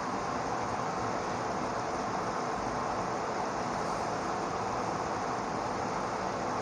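Steady background noise, an even hiss with a faint hum and no distinct events.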